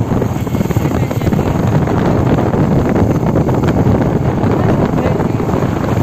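Steady wind rush buffeting a phone's microphone on a moving motorcycle, with the motorcycle running underneath.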